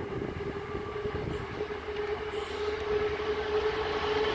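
Class 66 diesel-electric locomotive, its two-stroke V12 diesel running with a steady engine tone. It is running light with no wagons and growing steadily louder as it approaches.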